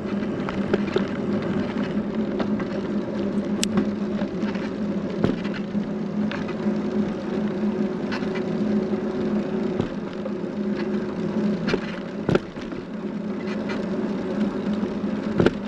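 A vehicle on the move: a steady engine hum, with scattered sharp clicks and knocks over it.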